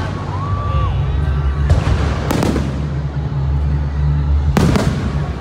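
Aerial fireworks shells bursting overhead: a sharp burst with crackle a little under two seconds in, another about half a second later, and a third near the end. They sound over background music with a steady low bass.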